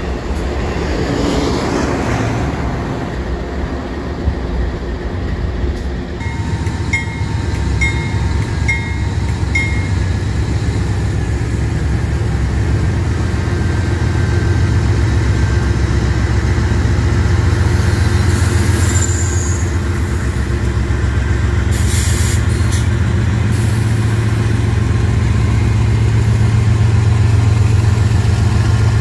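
Diesel engines of a line of BNSF freight locomotives running with a steady low hum that grows louder through the second half as the locomotives begin to creep forward. A passing passenger train's rumble fades out in the first few seconds.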